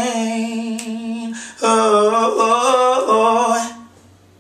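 A solo voice singing a cappella, holding long drawn-out notes in two phrases with a short breath between, the second phrase wavering through a run before fading out near the end.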